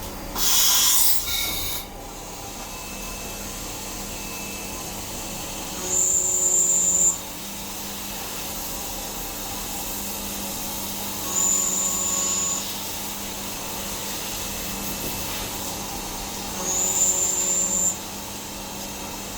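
CNC machine cutting stainless steel parts: a steady hum runs throughout, with a loud hissing burst near the start. Then come three high-pitched whines, each about a second long and roughly five seconds apart, as the tool engages the metal.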